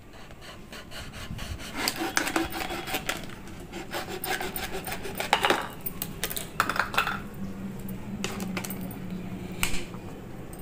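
Small plastic Bisleri water bottle being cut with a kitchen knife and then scissors: the thin plastic crackles and crinkles in quick, irregular clicks as the blade saws through it, with a few louder crackles along the way.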